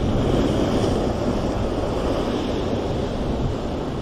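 Sea surf washing steadily onto the shore, with wind rumbling on the microphone.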